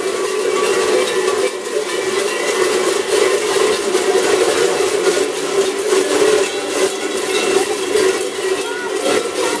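Many large cowbells worn on the belts of kurent sheepskin costumes, clanging together unevenly and without pause as the wearers move, with crowd chatter underneath.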